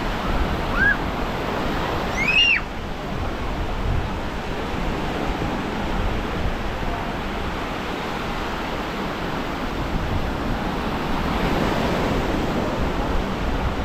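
Ocean surf washing onto a sandy beach, a steady rushing noise, with wind on the microphone. Two short high calls rising and falling in pitch sound near the start.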